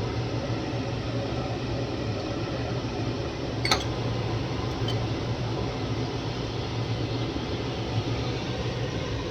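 Steady fan-like mechanical hum with one light clink about three and a half seconds in.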